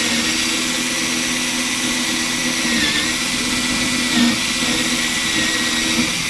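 Household power drill running steadily, driving a 1-inch hole saw through a thick wooden desktop that it has not yet cut through.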